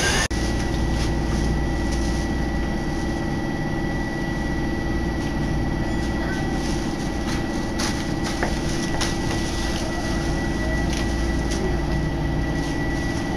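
Interior running noise of a Tokyo Metro Marunouchi Line subway car pulling out of a station: a steady rumble with a constant high whine and a few faint clicks.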